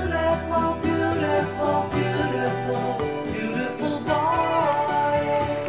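Background music: a gentle song with guitar and a singing voice.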